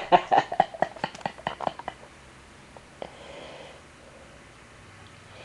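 A person's breathy chuckling: rapid short pulses, about seven a second, fading out over about two seconds. Then a quiet room with one faint click about three seconds in.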